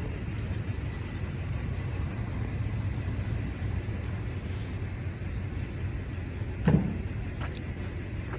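Steady low outdoor rumble of road traffic, with one sharp knock about two-thirds of the way in and a couple of faint ticks after it.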